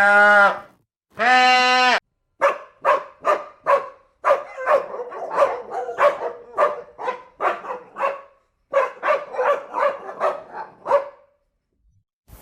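An animal calling: two longer drawn-out calls, then a fast run of short calls about three a second that stops about a second before the end.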